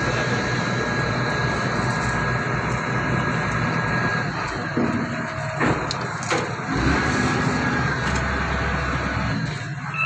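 An engine running steadily with a low hum, with two sharp knocks a little more than halfway through.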